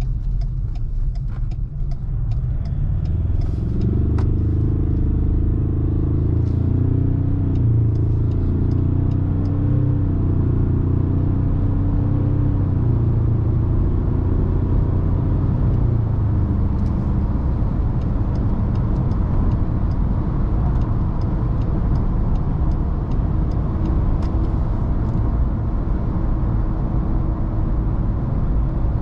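Ford Ranger Raptor's engine heard from inside the cabin, swelling and rising as the truck pulls under load for about twelve seconds, then settling into a steady highway cruise with low tyre and road rumble.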